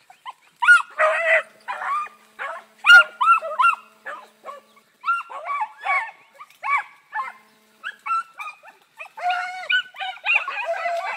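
A pack of dogs baying as they run a rabbit on its trail. The short barks and bays come several a second from more than one dog, and the voices crowd together into a denser chorus near the end.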